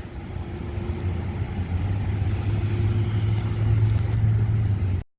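A motor vehicle's engine running close by, a steady low rumble that grows louder over the first couple of seconds and then holds. It cuts off suddenly near the end.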